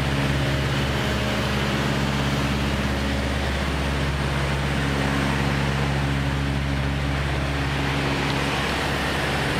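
A steady low mechanical hum over a haze of street noise, unchanging in level throughout.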